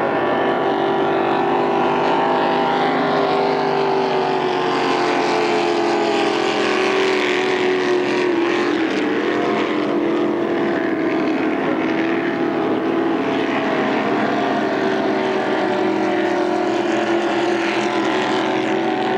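Racing powerboat engine running flat out as the boat skims across the water: a steady engine drone whose pitch wavers, dipping briefly about nine seconds in.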